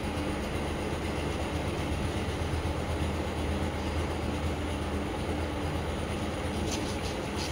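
Steady low hum with an even rushing noise, unchanging throughout, like a machine running in the room.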